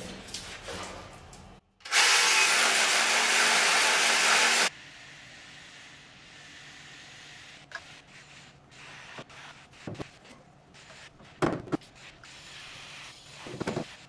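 Hand-held rotary hammer drill boring into a wall, running loud and steady for about three seconds before stopping abruptly. After it, a few light clicks and knocks.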